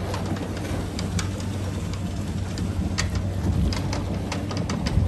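Sailboat's inboard engine running steadily at low revs, with scattered sharp clicks and knocks over it.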